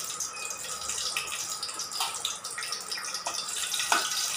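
Dried red chillies sizzling in hot oil in an aluminium kadai, a steady hiss. From about two seconds in there are a few light clicks of a spoon against the pan.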